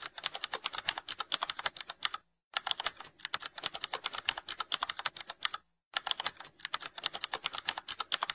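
Typing sound effect: rapid key clicks in three runs, broken by two short pauses, a little over two seconds in and near six seconds in.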